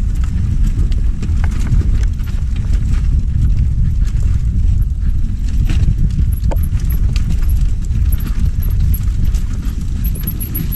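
Mountain bike descending a rough dirt singletrack, heard from a camera on the bike or rider: a steady low rumble with dense, irregular rattling and knocks from the tyres and bike over the bumpy trail.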